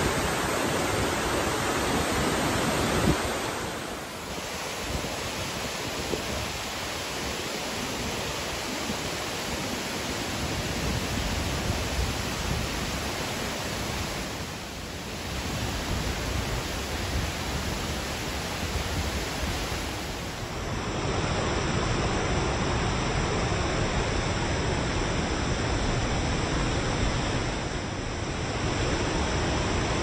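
A large waterfall pouring down steep rock slabs: a loud, dense, steady rush of falling water.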